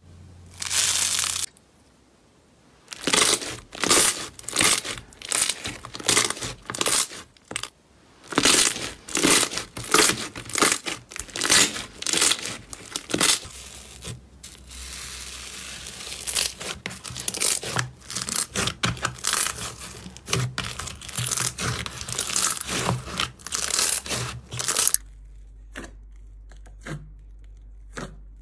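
Hands squeezing, stretching and poking slime, making runs of crackling, crinkling and tearing sounds in quick bursts, with a few short pauses and only soft squishes near the end.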